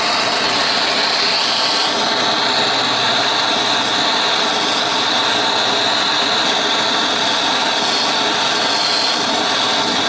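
Steady flame of a gas blowtorch preheating the vaporiser of an antique paraffin blowlamp, so that the paraffin will vaporise when the lamp is lit.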